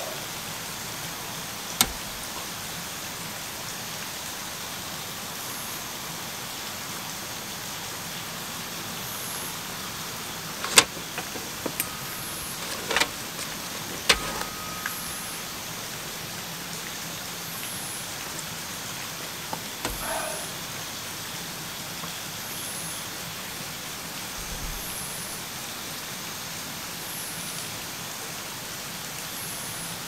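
Steady background hiss with a faint, very high insect chirp repeating about every second and a half. A little over a third of the way in, a cup is handled on the metal camp table: a few sharp clinks and knocks, one leaving a short ring, with a few softer knocks later.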